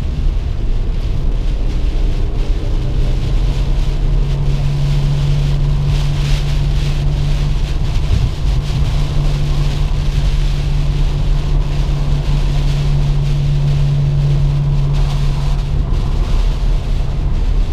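Inside a car driving through heavy rain on a wet road: a steady drone of engine and tyres over the hiss of rain and spray on the windshield. A low steady hum joins about three seconds in and drops away near the end.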